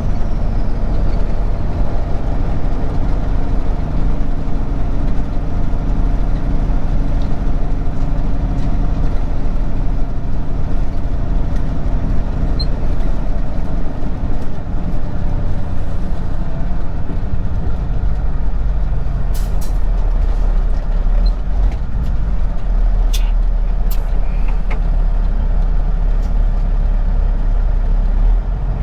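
Semi-truck's diesel engine running steadily under load with road noise, heard inside the cab while driving. The truck is hauling a flatbed of heavy roofing shingles. A few sharp clicks come in the last third.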